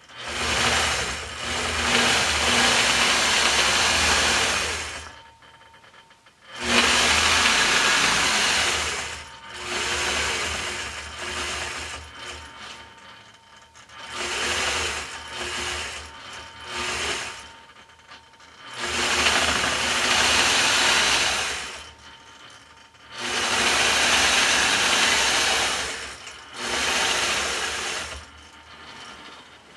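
Gammill longarm quilting machine stitching in runs of about two to four seconds, stopping briefly between them, some seven times over.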